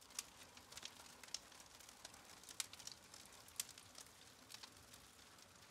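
Faint crackling of a wood campfire: a soft steady hiss with a handful of sharp, irregular pops and snaps.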